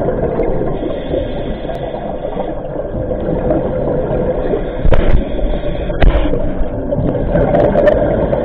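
Scuba diver breathing through a regulator underwater: a steady bubbling rumble of exhaled air, with two short louder bursts about five and six seconds in.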